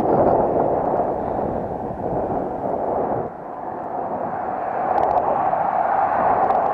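Muffled wind rush on an action camera while cycling, a steady rumbling roar; the deepest rumble drops away about three seconds in, and a few faint clicks come near the end.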